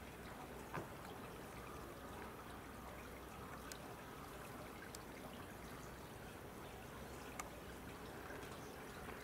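Faint, steady rushing noise with a few light, sharp ticks, one a little under a second in and another about seven seconds in.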